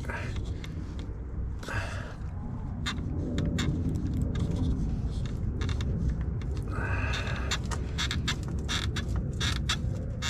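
Rubber evap hose being twisted and pulled off the plastic nipple of a leak detection pump on a charcoal canister: a run of small creaks and crackles, with a brief squeal about seven seconds in, over a steady low rumble.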